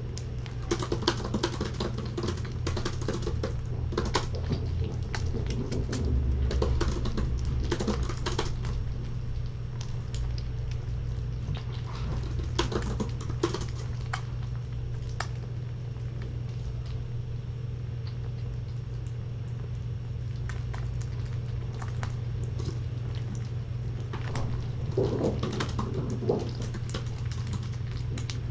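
Kittens eating wet food from paper plates, with irregular light smacking and clicking in small clusters over a steady low hum.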